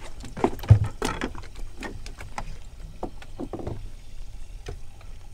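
Irregular knocks and clicks against a small fishing boat's hull over a steady low rumble of water and wind, with one heavy thump about three-quarters of a second in.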